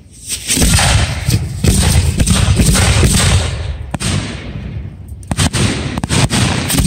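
Aerial fireworks going off: a rapid run of bangs merging into a continuous rumble with crackle, easing after about four seconds into scattered sharp bangs, each trailing off in a rumbling echo.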